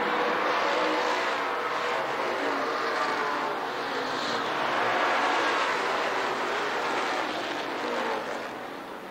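Several race car engines at high revs, overlapping as stock cars run at speed around the speedway. The sound eases a little near the end.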